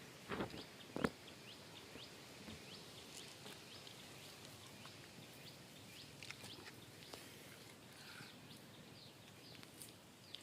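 Faint outdoor ambience with many short, high chirps scattered throughout over a steady hiss, and two sharp knocks in the first second.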